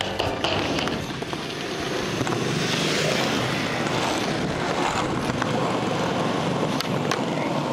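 Skateboard wheels rolling on a concrete skatepark surface, a steady rumbling hiss with a few sharp clicks and clacks from the board.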